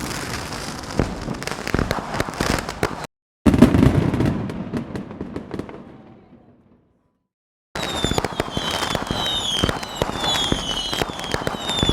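Dense crackling and popping in separate stretches cut off abruptly by silence, one stretch fading out; the last stretch carries a run of repeated falling whistles.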